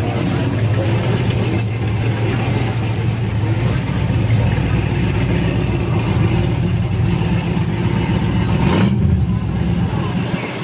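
Car engine running steadily, with a strong low hum; it swells slightly about nine seconds in, then eases off.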